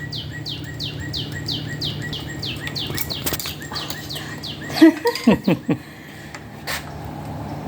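A bird chirps over and over, about three short falling chirps a second, and stops about four and a half seconds in. Through it runs a steady low hum, and a few sharp clicks and then a louder cluster of knocks and clatter come near the middle.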